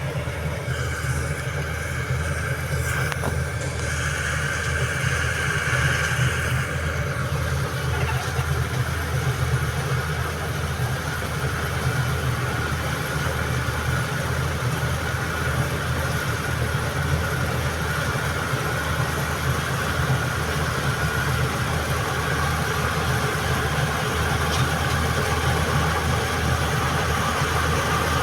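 John Deere combine harvester running steadily: a continuous low engine drone with a steady higher whine over it.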